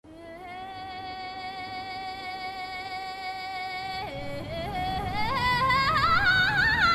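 A solo singing voice in a Tibetan folk style holds one long high note. About four seconds in it drops, then climbs in quick ornamented, yodel-like turns to a higher note. A low musical backing swells underneath as it grows louder.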